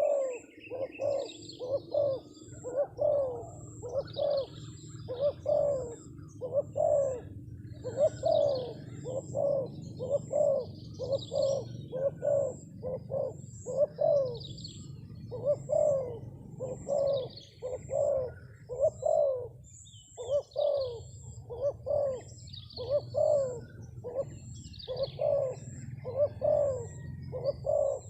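Spotted dove (terkukur) cooing over and over in runs of several notes, about two coos a second, its coaxing call. Smaller birds chirp faintly behind it.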